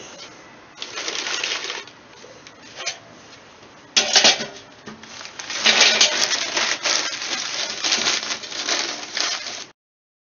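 Charcoal briquettes and a metal chimney starter clattering and scraping on a kettle grill's charcoal grate. It comes as one short burst about a second in, then a busy run of clinks and scrapes from about four seconds in.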